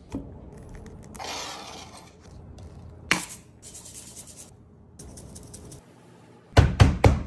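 Knife scraping cream cheese across rolled-out dough on a sheet pan, then a single sharp click. Near the end come about four loud thumps in quick succession.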